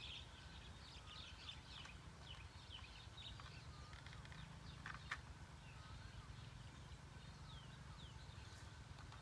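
Small birds chirping repeatedly in short, downward-sliding calls over a low steady rumble, with one sharp click about five seconds in.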